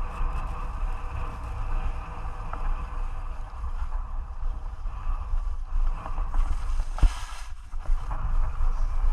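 Low, gusty wind noise buffeting the microphone, with a single sharp knock about seven seconds in.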